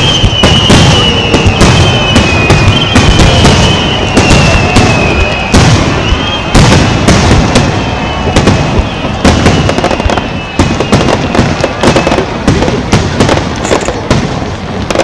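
Aerial fireworks shells bursting in a rapid, dense barrage: many sharp bangs one after another with crackling in between.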